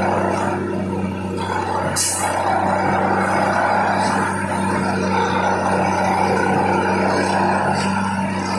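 Railway track tamping machine working, its diesel engine running with a steady low hum. A short sharp hiss of air comes about two seconds in, with fainter hisses later.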